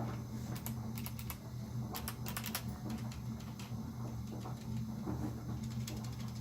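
Typing on a Glorious GMMK full-size mechanical keyboard with clicky Kailh Box White switches, whose click bars click on both the press and the release, in quick irregular strings of keystrokes. A steady low hum from a hot water heater runs underneath.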